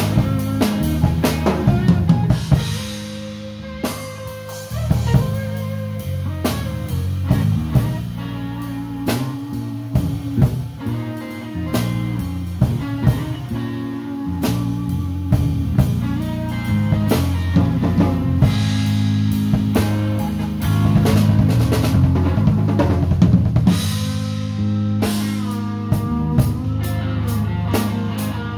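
Live rock band playing an instrumental passage, with the drum kit's snare and bass drum prominent, a bass line underneath, and electric guitar, including a bent note about 25 seconds in.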